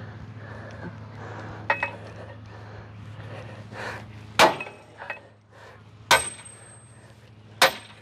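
Hammer blows on a pin driver held against a semi truck fifth wheel's mounting pin, driving the pin out: four sharp metal-on-metal strikes a second or two apart, the first lighter, some with a brief ringing tone, over a steady low hum.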